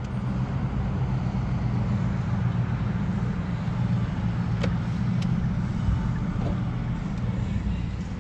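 Car driving at highway speed, heard from inside the cabin: a steady low hum of engine and tyre road noise, with two faint ticks near the middle.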